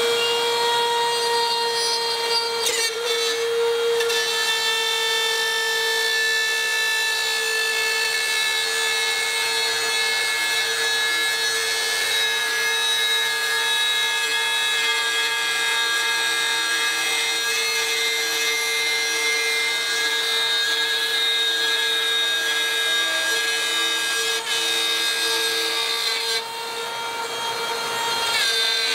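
Parkside PRSA 20-Li A1 cordless rotary cutter running with a steady high whine as its router bit cuts through 6 mm plywood. Its level dips briefly near the end, then comes back up.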